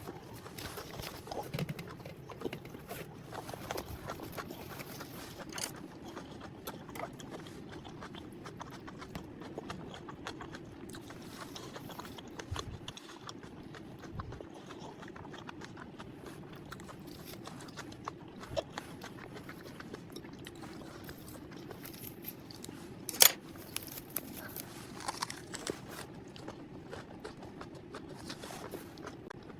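A person eating: soft chewing and small crunches with scattered light clicks of utensils on dishes, one sharper click about two-thirds of the way through, over a faint steady hum.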